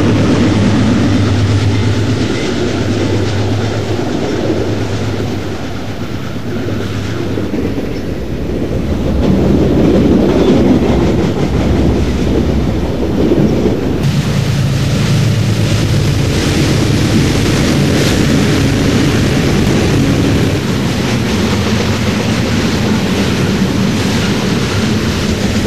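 HO scale model train running past: a steady low diesel drone with the clickety-clack of a long string of covered hopper cars rolling over the track. The drone shifts in pitch about halfway through.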